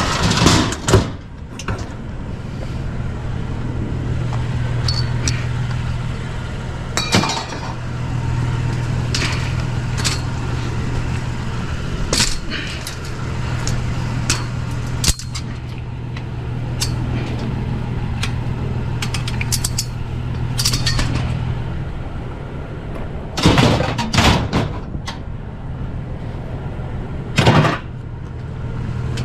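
Vehicle engine running with a steady low hum, with scattered clinks and knocks of hard objects being handled.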